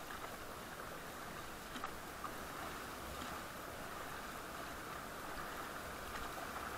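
Raft paddles dipping and splashing in a slow river over a steady rush of water, which grows a little louder near the end as the raft nears a shallow rocky rapid.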